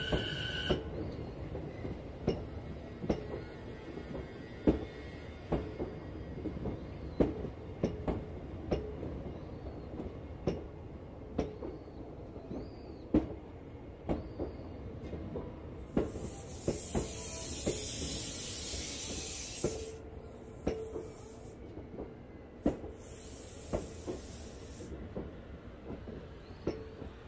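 Sotetsu 12000 series electric train rolling slowly, its wheels knocking over rail joints about once a second, with a faint steady whine from its IGBT-VVVF inverter and traction motors. Midway come bursts of air hissing from under the car, the loudest lasting about four seconds: the air brakes releasing.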